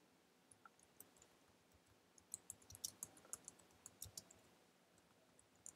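Faint typing on a computer keyboard: a quick run of key clicks from about two seconds in, lasting about two seconds, with a few single clicks before and after.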